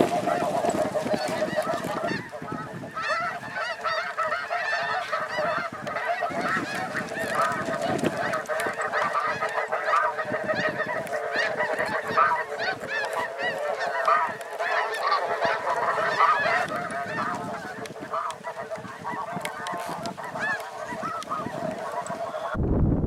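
A large flock of snow geese calling all at once: a dense, continuous chorus of overlapping high honks. It cuts off abruptly near the end.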